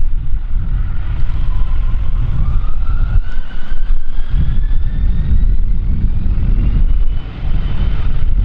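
Jet airliner engines running with a heavy low rumble, their whine rising slowly in pitch as the engines spool up.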